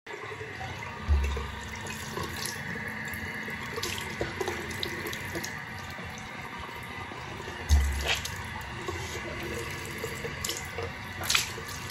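Bathroom tap running steadily into a sink, with two dull thumps, one about a second in and one near eight seconds, and a sharp click near the end.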